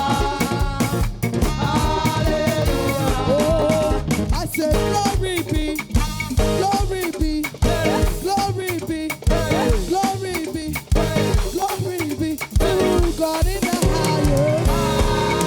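Live church praise band playing upbeat African-style dance music, with a steady drum-kit beat under a bending, phrase-by-phrase melody line.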